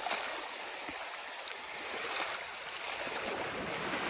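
Shallow seawater lapping and sloshing around the legs of someone standing in it, a steady hiss with faint small splashes.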